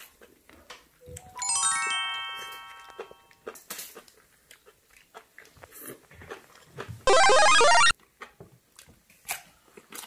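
Edited-in sound effects: a descending run of bell-like chime notes about a second in, ringing out for about two seconds, then a short, very loud musical sting lasting under a second near the seven-second mark. Faint clicks of chewing and chopsticks lie between them.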